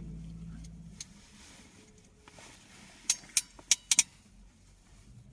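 A quick run of five sharp little metallic clicks, about a third of a second apart, from small tools and crimp connectors being handled while wiring.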